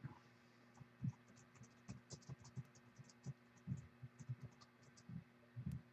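Faint computer keyboard typing: irregular quick key taps in short runs, with a few soft low knocks.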